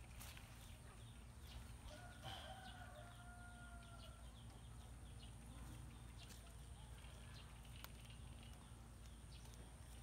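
A rooster crowing faintly once, a single drawn-out call beginning about two seconds in, over an otherwise near-silent background.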